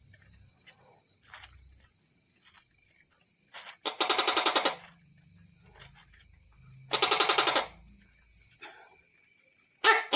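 Tokay gecko calling: two short, rapidly pulsed calls about three seconds apart over a steady high chirring of insects. A sharp, loud sound falling in pitch comes near the end.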